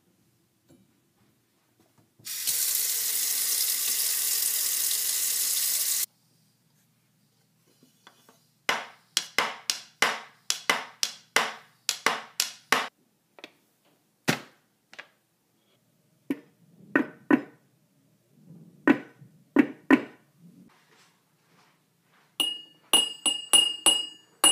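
A kitchen faucet runs into a stainless steel sink for about four seconds, then is shut off suddenly. A hand then taps and knocks on a cardboard box in quick, uneven runs of taps. Near the end a metal fork strikes glass mason jars in a quick run of ringing clinks.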